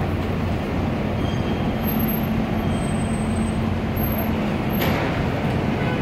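Steady low rumble of heavy vehicle engines and street traffic, with an engine drone holding one pitch for a few seconds in the middle.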